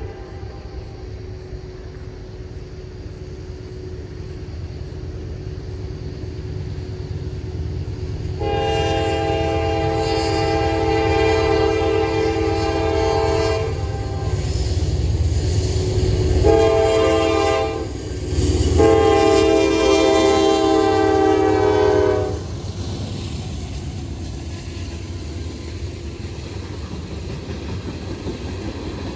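Nathan K5LA five-chime air horn on a GE C44-9W freight locomotive sounding the grade-crossing signal: a long blast ends at the start, then a long, a short and a final long blast. The locomotive's rumble swells as it reaches the crossing, and the freight cars rattle and clack over it afterwards.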